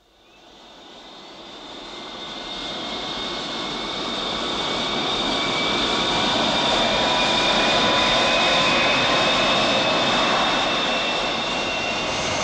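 Jet aircraft engine sound effect for a take-off. It swells up out of silence over the first few seconds to a loud, steady noise with a high whine running through it.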